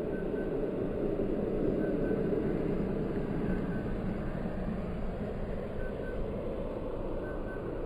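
Faint short high beeps in pairs, repeating about every one and a half seconds, over a steady low rumble.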